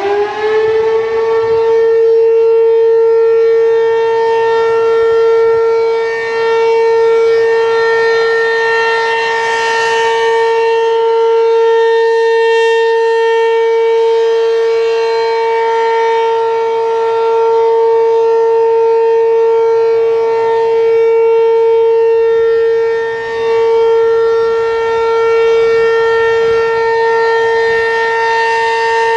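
ACA P-15 outdoor warning siren sounding its steady alert signal: it finishes winding up in the first moment, then holds one steady, loud pitch with many overtones. The level dips briefly twice.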